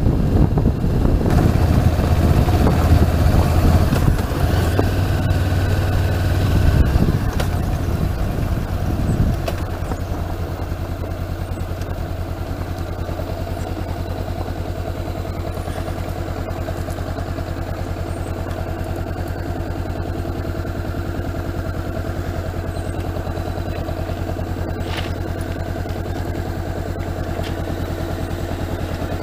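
Motorcycle engine running under way with wind and road noise, easing off as the bike slows, then idling steadily from about ten seconds in with the bike at a standstill.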